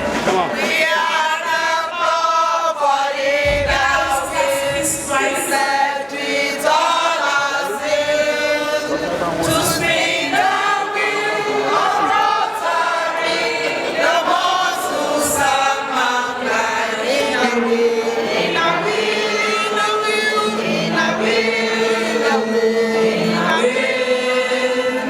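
A choir of voices singing.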